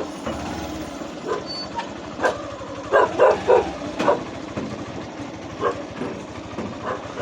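Dogs barking: a quick run of three loud barks about three seconds in, with single barks scattered before and after.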